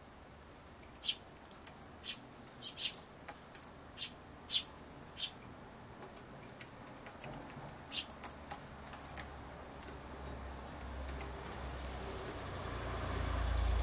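Eurasian tree sparrows at a feeding table giving a scattered series of short, high chirps, with a fledgling's weak, hoarse begging call among them. A low rumble builds near the end.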